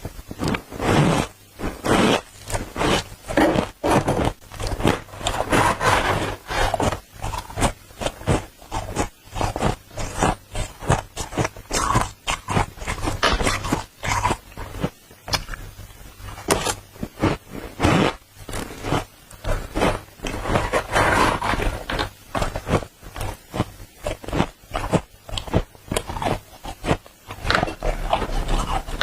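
Dry, squeaky deep-freezer frost crunching close to the microphone as it is spooned up and chewed, in rapid irregular crunches with no let-up.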